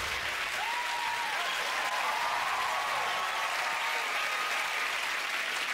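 Studio audience applauding steadily, with cheering voices rising and falling over the clapping.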